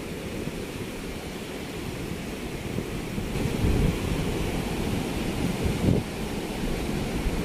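Ocean surf breaking and washing up a sandy beach, with wind rumbling on the microphone in gusts, loudest about four and six seconds in.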